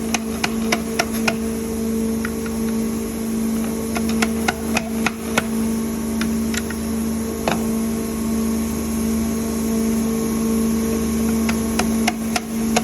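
Steady low machine hum on the factory floor, with scattered sharp clicks and light knocks of parts being handled.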